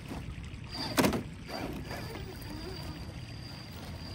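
1/10-scale FMS FCX10 LC80 RC crawler with a brushless motor crawling over rocks, its motor and drivetrain whirring with a pitch that rises and falls with the throttle. There is a single sharp knock about a second in.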